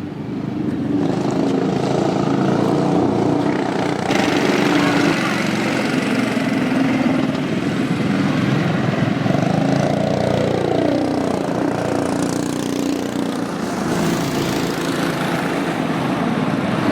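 Small engines of cyclekarts running as they are driven around a dirt track, getting louder over the first couple of seconds. Past the middle, one engine's pitch falls as it slows or passes by.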